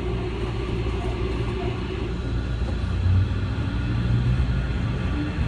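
Fukuoka City Subway train running, heard from inside the car: a steady low rumble that swells slightly midway.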